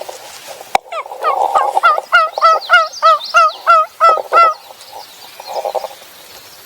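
A run of about a dozen turkey yelps, evenly spaced at about three a second, each note bending down in pitch, after a single sharp click.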